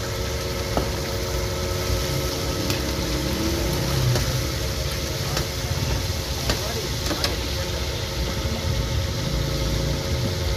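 Chapli kababs deep-frying in a wide pan of oil, with a steady sizzle and bubbling over a low engine rumble from an idling vehicle.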